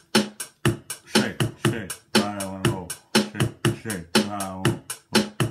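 Beatboxing into a handheld microphone: sharp mouth-made kick and snare hits about four a second, with a hummed, slightly falling bass note twice, about two and four seconds in.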